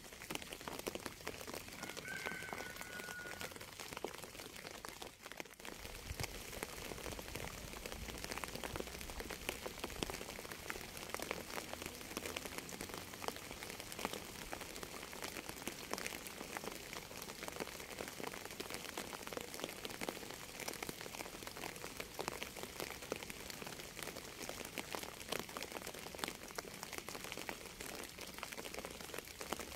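Steady rain, many drops pattering with fine, dense ticks. A brief faint high chirp sounds about two seconds in.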